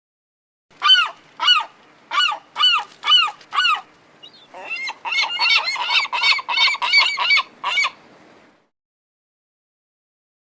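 Goose honking: six separate honks, then a quicker run of overlapping honks that stops about eight seconds in.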